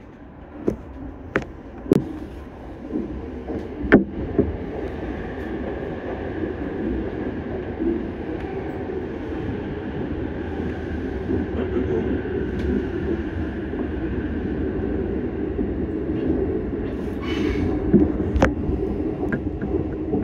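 JR East E233-series electric commuter train running on the Chuo Rapid Line, heard from the driver's cab. A few sharp clacks of the wheels over rail joints come in the first four seconds. Then comes a steady running rumble with a faint high hum, growing slowly louder.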